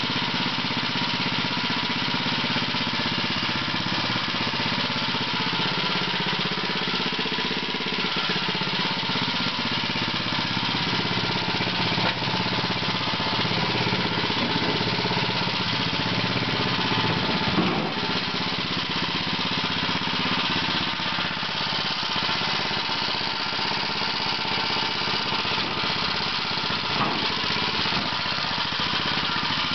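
Small gasoline engine fitted to a 1921 Cataract washing machine, running steadily at constant speed as it drives the washer on its first run. One brief knock stands out about two-thirds of the way through.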